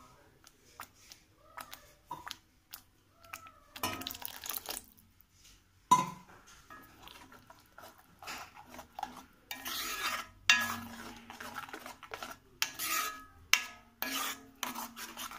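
A metal spoon stirring and scraping thick masala gravy in a kadai, in repeated strokes against the pan's sides, with one sharp clink about six seconds in.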